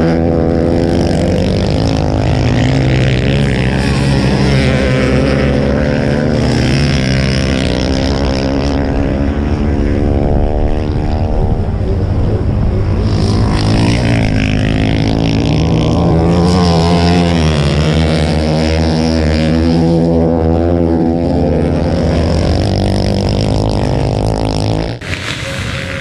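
Several ice-racing motorcycle engines revving hard, their pitch rising and falling again and again as the bikes accelerate through the corners and pass. The sound drops off abruptly near the end.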